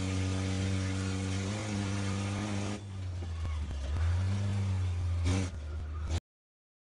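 Volvo 940GL banger race car's engine heard from inside the cabin, running loud with its exhaust gone. About three seconds in the engine note eases off, then climbs again a second later as it accelerates. The sound cuts out abruptly to silence near the end.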